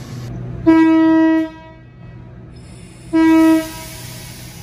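Electric passenger train's horn sounding two steady blasts, the first about a second in and lasting under a second, the second shorter and near the end, as the train moves off. A low steady hum from the train runs underneath.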